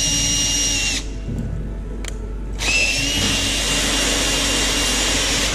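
A hand-held power drill running with a steady high whine. It cuts out about a second in, then spins up again with a short rise in pitch about a second and a half later and keeps running.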